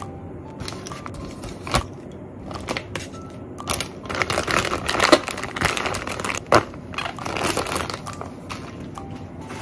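Plastic zip-top freezer bags crinkling as sliced raw pork is dropped in with tongs and the filled bags are handled and pressed closed. The crinkling is densest in the second half, with two sharp clicks, one about two seconds in and another past the middle.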